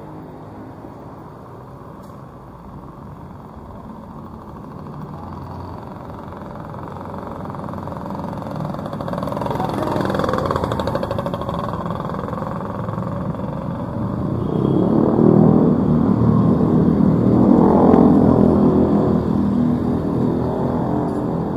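Street traffic: engines of passing motorbikes and cars, with one vehicle passing close about ten seconds in, its engine pitch sweeping as it goes by. From about fourteen seconds a louder stretch of motorbike engines passing close follows, before fading slightly near the end.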